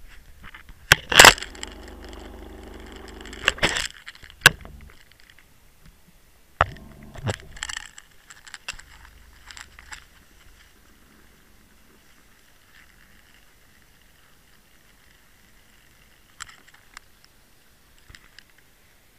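Knocks and clattering from handling of the camera as it is set against the side of a small motorboat: a sharp knock just after a second in, a cluster around three and a half to four and a half seconds, more around seven to eight seconds. After that it is mostly quiet, with a few faint clicks near the end.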